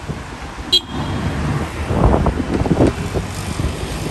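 Red London double-decker bus driving past on a city street, its engine running amid traffic noise, with a brief high squeak about a second in.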